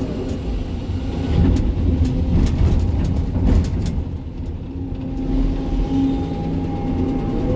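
Sany 305 excavator's diesel engine and hydraulics working under load, with a cluster of sharp knocks and scrapes of rock in the bucket between about 1.5 and 4 seconds. From about 5 seconds a steady hydraulic whine rises above the engine.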